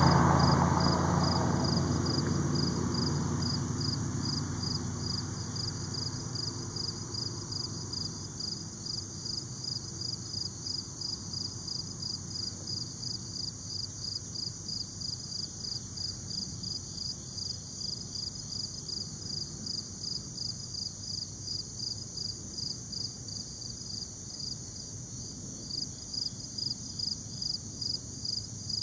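Insects calling: a steady high-pitched trill with a second, regularly pulsing call over it, a few pulses a second, which drops out briefly near the end and comes back louder. The noise of a passing vehicle fades away over the first several seconds.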